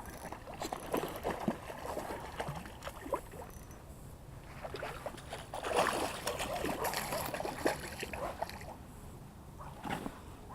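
Water splashing and sloshing in irregular bursts, busiest in the middle.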